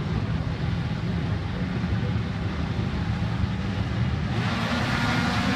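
Several racing snowmobile engines running together on a start line, with a low idling drone. About four seconds in, a higher, brighter whine joins as the engines are revved for the start.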